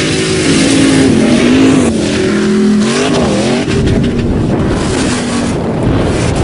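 Ford Raptor pickup truck engine revving up and down while driving off-road, its pitch climbing and dropping several times over a steady rushing noise. A deeper rumble takes over near the end.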